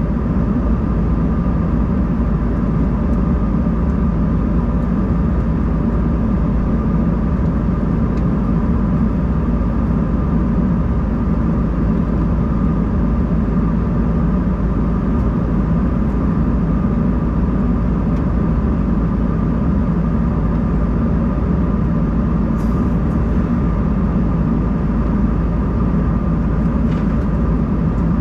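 Steady cabin noise of an Embraer 190-E2 airliner in flight: a constant rumble and rush of air with an even whine from its Pratt & Whitney geared turbofan engines. A few faint ticks come near the end.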